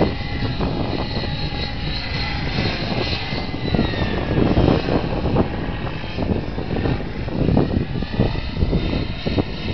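Wren gas-turbine engine and rotor blades of a radio-controlled model helicopter in flight overhead: a steady rushing noise with a high turbine whine that slowly slides up and down in pitch as the helicopter moves about.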